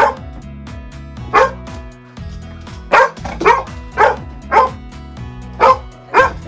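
Young white English golden retriever barking repeatedly, about eight sharp barks in irregular bunches, over background music.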